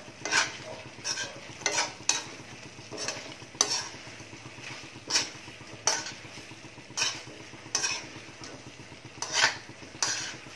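A spoon scraping and knocking around an aluminium wok as chicken feet in adobo sauce are stirred, in irregular strokes roughly once a second. Under the strokes a low sizzle from the sauce cooking down in the pan.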